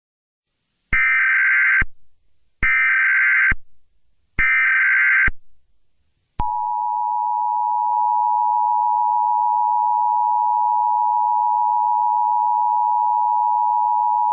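Emergency Alert System SAME header: three short bursts of harsh digital data tones. About six seconds in, the two-tone EAS attention signal (853 and 960 Hz together) starts and holds steady.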